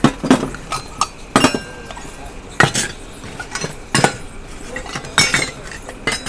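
Stainless steel serving bowls clinking as they are taken off a stack and set down one by one on a large metal pot lid. About a dozen sharp metal-on-metal clinks come at irregular intervals, some with a brief ring.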